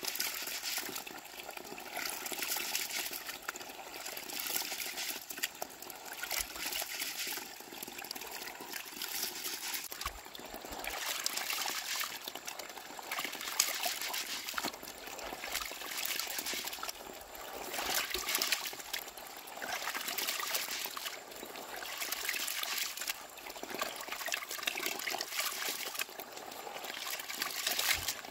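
Rice being washed by hand in a plastic basin of water: swishing, rubbing and splashing in swells every couple of seconds.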